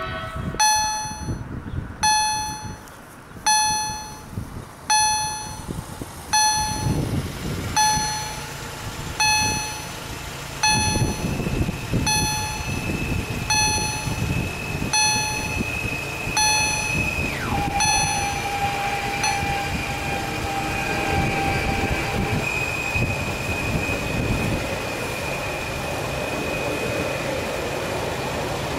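Level-crossing warning bell, an EHL-S10 electronic generator set to a bell tone, striking about once a second. A Stadler FLIRT electric train approaches and passes slowly, its rumble and a high whine growing until they drown out the bell; the whine drops sharply in pitch about two-thirds of the way in.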